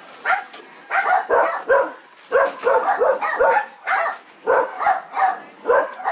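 Pyrenean Mountain Dog puppies barking in quick runs of short, high barks, several a second with brief pauses between runs.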